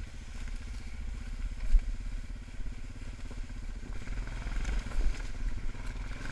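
ATV engine running steadily as it rides a leaf-covered trail, with occasional low thumps from the bumpy ground.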